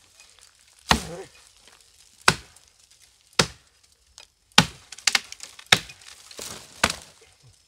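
Axe blows chopping into a green catingueira trunk: about eight sharp strikes, roughly one a second.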